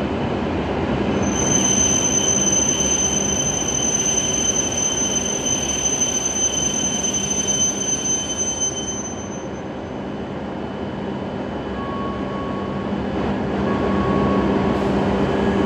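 Hokuriku Shinkansen E7/W7-series train moving along the platform: a loud rushing rumble with a steady high-pitched squeal that stops about nine seconds in. The noise then eases and builds again near the end.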